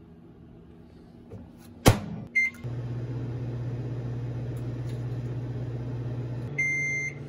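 Microwave oven being started: a sharp click, then a short keypad beep, then the oven hums steadily as it heats. Near the end the hum shifts and a long beep sounds.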